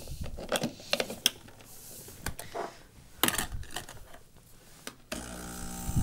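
Several clicks and knocks as the portafilter is locked into the DeLonghi EC155M and a glass shot cup is set on its drip tray. About five seconds in, the machine's vibratory pump starts with a steady buzzing hum as the espresso shot begins.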